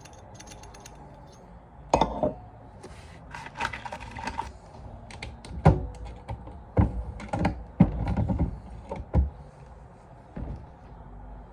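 Handloading equipment being worked for .40 rounds: irregular metallic clicks and clinks, a short bout of rattling, and several sharp knocks, as of brass cases and press parts striking metal.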